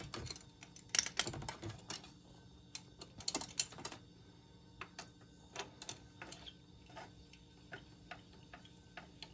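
Hand ratchet clicking as bolts are run down. A few louder metal clacks come in the first few seconds, then single clicks about twice a second.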